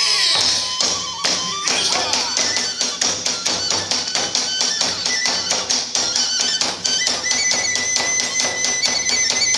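Iwami kagura hayashi music: fast, dense drum strokes and small hand-cymbal hits, with a bamboo flute playing over them and holding one long high note near the end.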